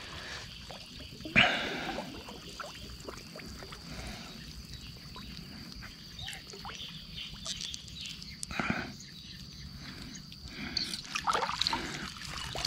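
Water splashing and dripping as a fine gill net is drawn up and small fish are picked from it by hand in shallow stream water. There is a sharper splash about a second and a half in, another near the end of the middle, and more sloshing and dripping near the end. A faint steady high tone runs under it until near the end.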